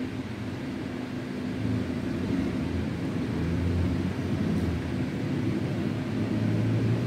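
A steady low rumble, like an engine or machine running in the background, swelling a little in the middle and again near the end.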